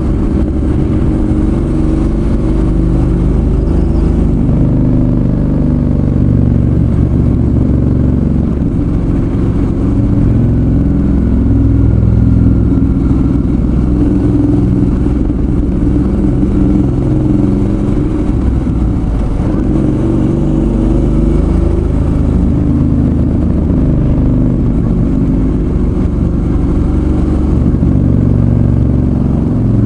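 Suzuki V-Strom 650's V-twin engine running under way, its pitch rising and falling with the throttle and shifting in steps, as with gear changes.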